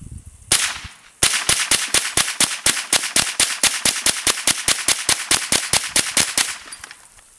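Smith & Wesson M&P15-22 semi-automatic .22 LR rifle firing: one shot, then a rapid, even string of shots at about five a second for some five seconds.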